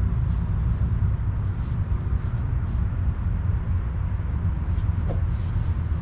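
Steady low rumble of background noise, with faint short ticks above it.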